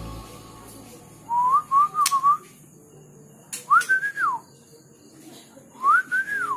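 Three phrases of clear, pure whistled notes. The first is a quick run of short rising notes; the next two are single notes that climb and then fall. A few sharp clicks come between them.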